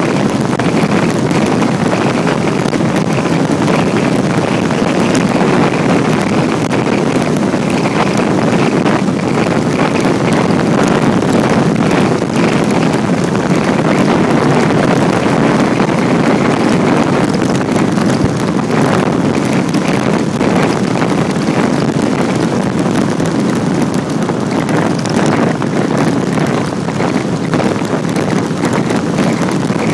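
Loud, steady wind rush buffeting a handlebar-mounted camera's microphone on a road bike moving at speed.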